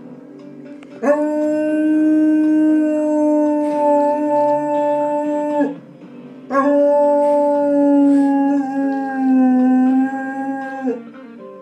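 A pet dog howling along to television theme music: two long, drawn-out howls of about four to five seconds each, with short pauses between.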